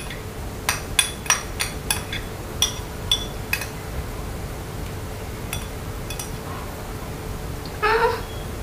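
A spoon clinking and scraping against a glass bowl, about ten quick clinks in the first three and a half seconds as the last of the porridge is scraped out, then only faint scrapes. A brief voice sound near the end.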